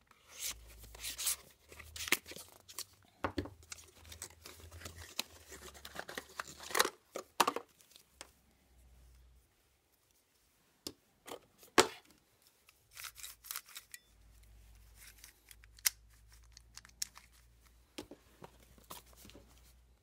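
A knife slitting the seals of small cardboard speed-cube boxes and the boxes being torn open. Irregular sharp scrapes, rips and clicks come and go, with a short lull about halfway through, and in between a plastic speed cube is handled and turned.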